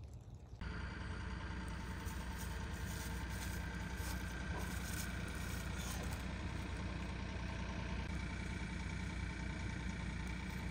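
Cat 304 mini excavator's diesel engine running steadily. It comes in suddenly about half a second in.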